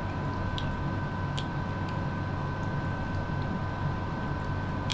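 Steady machine hum and hiss with two faint steady high whining tones, and a few soft clicks.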